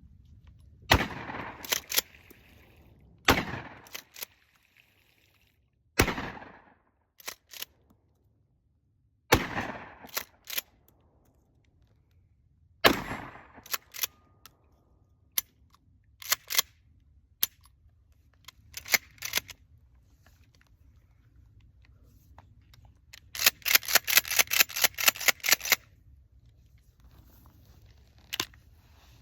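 Pump-action shotgun fired five times, a few seconds apart, each loud echoing shot followed by the quick clack-clack of the slide being pumped. Later comes a run of rapid metallic clicks.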